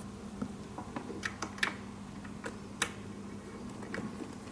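Irregular light clicks and ticks of a small wrench turning a screw out of a treadmill's plastic handlebar cover, over a faint steady hum.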